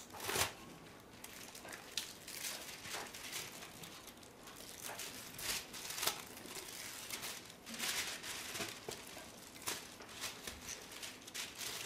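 Thin plastic release film crinkling and rustling in irregular crackles as it is stretched by hand over a plaster cast.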